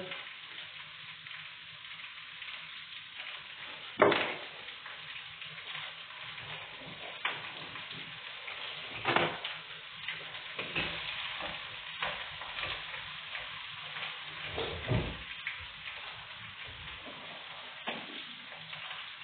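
Sliced zucchini frying in a small pan over a moderate gas flame, a steady sizzle. A few sharp knocks of a utensil against the pan, the loudest about four seconds in.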